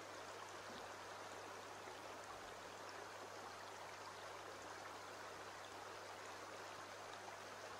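Shallow stream flowing over stones: a faint, steady rush of water, with a low steady hum underneath.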